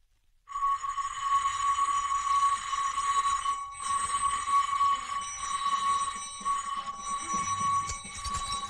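Wind-up alarm clock's bell ringing steadily, waking the sleepers. It starts about half a second in and breaks off briefly about three and a half seconds in.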